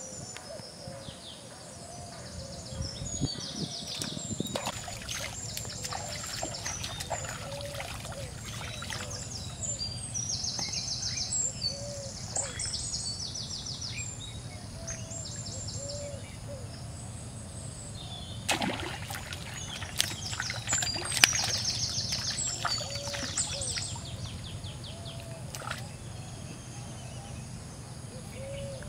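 Birds chirping in rapid high trills, with a short low call repeating every second or two. A little past the middle comes a cluster of sharp splashes as a hooked fish is pulled thrashing from the shallow pond.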